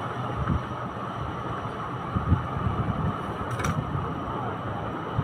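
Hands working the baby walker's fabric seat and plastic frame: soft rustles and a few low bumps over a steady background hum, with one sharp click about three and a half seconds in.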